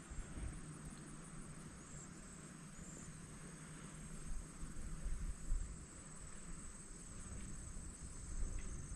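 Crickets or katydids calling in a steady high-pitched chorus, finely pulsing, over a low uneven rumble.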